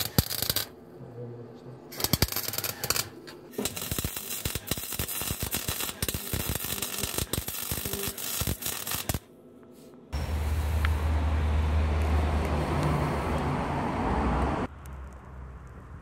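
Welding arc crackling and spitting in stop-start runs for about nine seconds as exhaust tips are welded onto the tailpipe. After a short pause comes a steady low rumble lasting about four and a half seconds.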